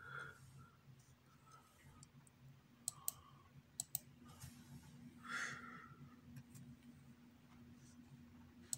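Faint, sparse clicks of a computer mouse and keyboard: a pair about three seconds in, another pair a second later, and one at the end. A faint steady hum sits underneath, and a short soft noise comes just past halfway.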